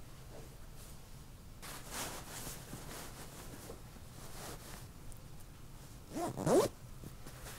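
Zipper on a fabric cushion cover pulled in a quick rising zip about six seconds in, the loudest sound here, with softer rustling of the cover and insert earlier.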